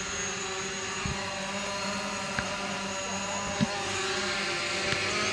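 Camera drone hovering close by, its propellers whining steadily with several fixed pitches, a little louder in the second half, with a couple of faint clicks.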